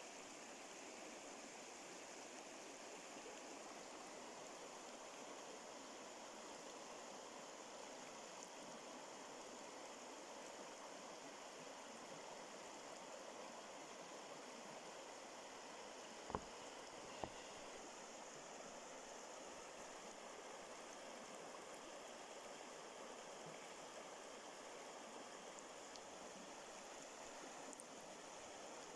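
Faint, steady rush of flowing water, like a small stream. Two short sharp clicks, about a second apart, come a little past the middle and are the loudest sounds.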